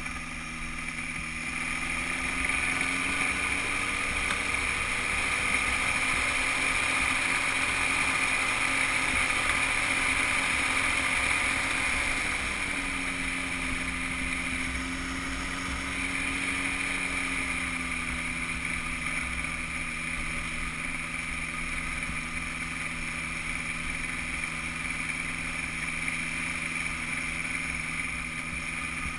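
Weight-shift microlight trike's engine and propeller running while the trike rolls over grass. The engine speeds up about two seconds in, holds steady, then drops back to a lower speed a little before halfway and eases off slightly once more later on.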